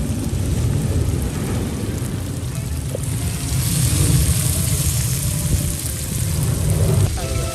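Steady low rumble of wind buffeting the microphone, with a brighter hiss joining about three and a half seconds in. Music comes in near the end.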